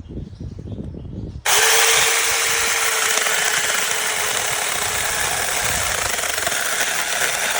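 Low rustling and handling knocks, then about a second and a half in a cordless electric mini chainsaw switches on abruptly and runs loud and steady, its motor and chain whirring at full speed.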